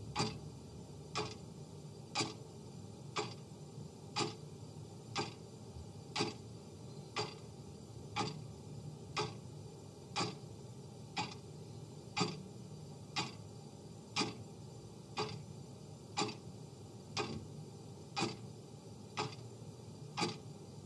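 Clock ticking sound effect, one sharp tick a second, marking off each second of a countdown timer.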